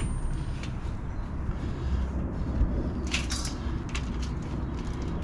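Hands rummaging and scraping through loose potting soil to find potatoes, in a few short rustling bursts, the strongest about three seconds in, over a steady low rumble.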